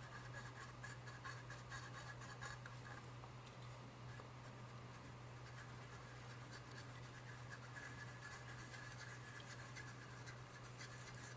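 Faint, quick scraping of a copper wire stirring thick two-part silver conductive epoxy against the bowl of a plastic spoon, over a steady low hum.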